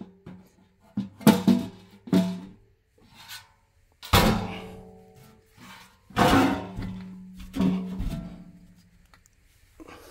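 Sheet-metal blower housing and motor knocking and clunking as the blower motor is handled and pulled out. The housing rings briefly after each knock. The knocks come irregularly, about eight of them, the loudest about four and six seconds in.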